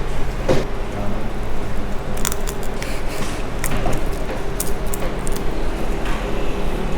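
Small hand tools clicking and scraping against a phone's housing during a back-glass repair, a few sharp ticks scattered through, over a steady low hum.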